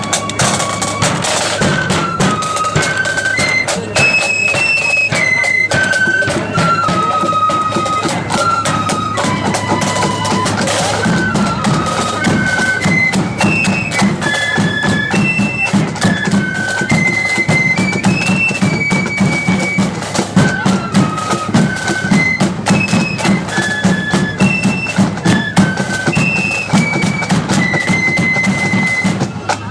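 Marching flute band playing: a high flute melody stepping from note to note over a steady beat of bass drum, side drums and cymbals, the drum strokes growing more pronounced in the second half.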